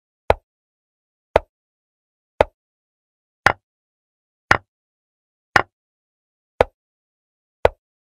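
Chess-board move sound effects: a short wooden click as each piece is placed, about one a second, eight in a row, the three in the middle louder and brighter.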